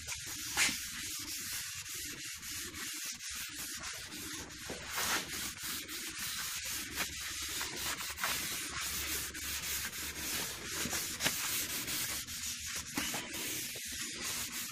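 Blue shop towel rubbed back and forth over stained pine boards, a continuous scrubbing hiss of quick overlapping strokes as the excess wood stain is wiped off to even out the finish.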